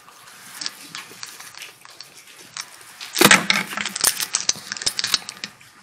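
Scattered soft clicks and crackles of small objects being handled during communion, picked up by the lectern microphone, with one louder, brief sound about three seconds in.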